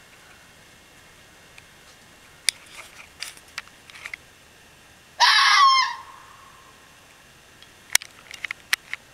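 Red fox giving one loud screech about five seconds in, under a second long, trailing off at the end; the fox's hello call.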